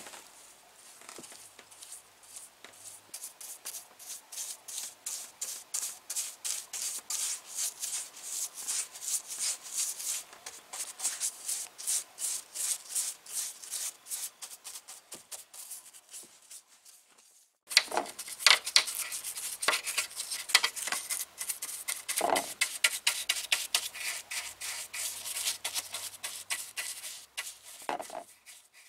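Chip brush bristles scrubbing liquid rust converter into rusted sheet-steel, a dry scratchy stroke repeated quickly and steadily, with a short break about two-thirds of the way through.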